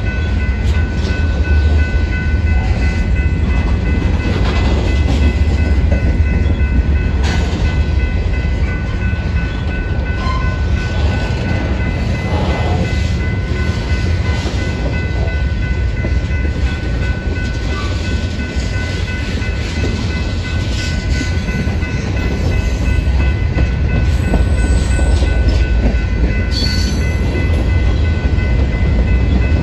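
Union Pacific freight train's covered hopper cars rolling past close by: a loud, steady rumble of steel wheels on rail, with a thin steady high whine over it.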